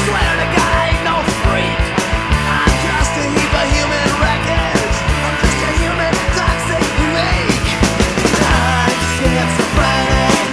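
Loud rock music with a steady drumbeat, laid over the pictures as a soundtrack.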